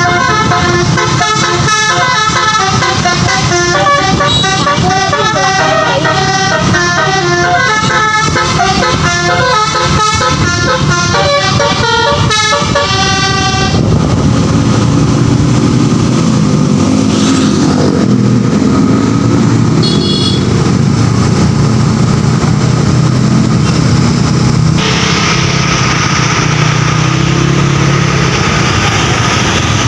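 A tour bus's multi-note Basuri "telolet" air horn playing a rapid melody of quickly changing notes. It stops suddenly about 14 seconds in, and steady engine and road noise carries on.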